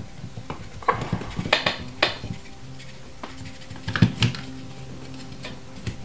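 Irregular clicks and knocks as a laser-cut plywood switch plate with gear pieces is handled and pressed against a wall switch box to line it up; the sharpest knock comes about four seconds in.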